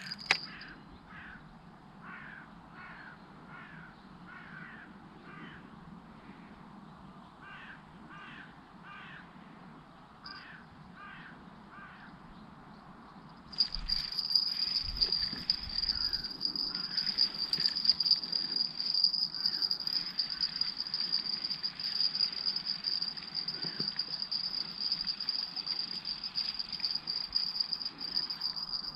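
A bird calls in short runs of repeated calls, about two a second, during the first half. About halfway through, a steady high-pitched insect trill from crickets starts suddenly and becomes the loudest sound.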